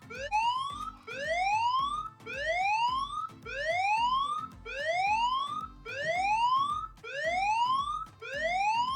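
Smartphone anti-theft alarm app sounding a siren: a rising wail repeated about once a second. The alarm keeps sounding until the owner's PIN is entered.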